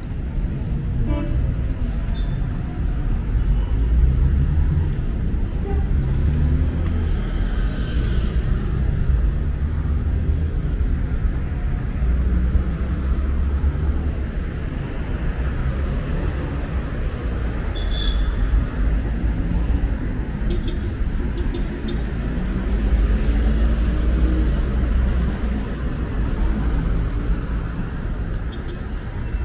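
City street traffic: a steady rumble of cars and other vehicles passing on a busy road.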